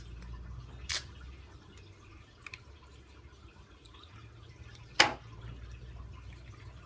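A few short sharp taps and clicks from parts being handled and set down during assembly of RC car electronics, the loudest about five seconds in, over a low steady hum.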